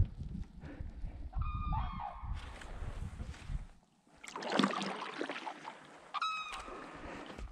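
Wild birds honking: a short run of calls a little over a second in and another about six seconds in. Between them a kayak paddle splashes into the water.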